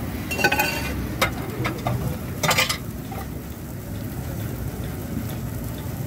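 Kulchas and chopped onions sizzling on a large flat tawa griddle: a steady frying hiss, with a few sharp clinks in the first three seconds.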